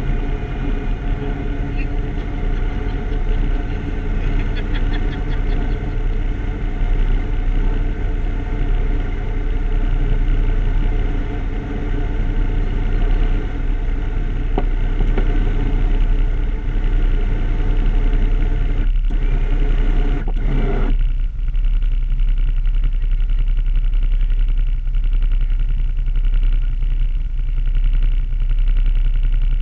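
Can-Am off-road vehicle engine idling steadily. A higher-pitched running note over the low rumble cuts out about two-thirds of the way through, while the idle carries on.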